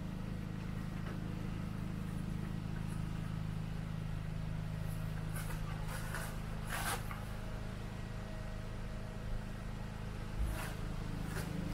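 Steady low hum of an engine running at constant speed, with a few brief rustles about halfway and near the end.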